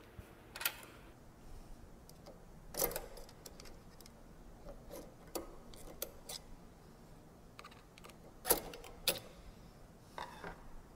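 Irregular metallic clicks and clinks as the steel grid of a grid-type shaft coupling is pried and worked out with a screwdriver, with the loudest clinks about two thirds of the way through.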